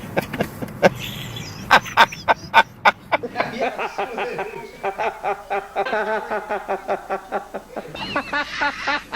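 A man laughing helplessly. Sharp bursts of laughter in the first few seconds give way to a long, rapid run of high-pitched wheezing cackles, with a squeaky wheeze near the end.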